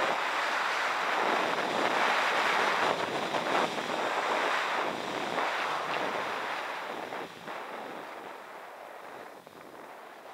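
Wind rushing over the microphone mixed with the hiss and scrape of sliding fast over packed, groomed snow on a downhill run. The noise eases off over the last few seconds.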